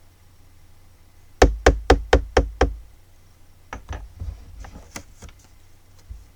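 Six sharp knocks in quick succession, about four a second, followed by a run of fainter, irregular knocks and clicks.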